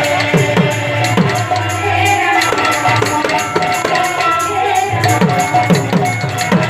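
Kirtan music: a two-headed hand drum beats out quick bass strokes that drop in pitch, over a fast, even clash of small hand cymbals and a held melody.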